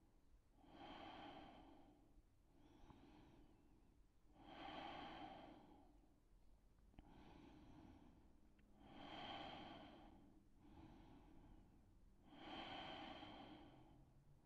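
Faint, slow, deep breathing of a person holding a yoga stretch. Four louder breaths come about every four seconds, with softer breaths in between.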